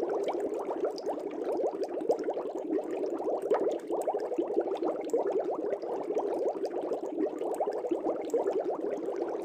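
Air bubbles rising and bubbling in a fish tank: a steady, dense stream of small bubble sounds with no pause.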